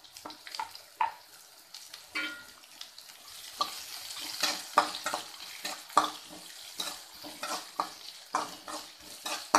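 Chopped onions sautéing in hot oil in a kadai, sizzling, while a spatula scrapes and knocks against the pan as they are stirred. The strokes are irregular, few at first and coming thick and fast from about two seconds in.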